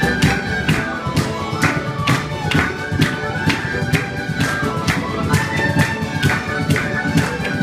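Celtic jam tune on fiddle with a drum keeping a fast, steady beat of about three to four hits a second under the bowed melody.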